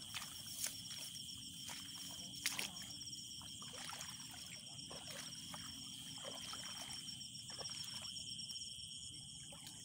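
Steady high-pitched chorus of night insects, one of them trilling rapidly, with scattered rustles and steps in dry grass.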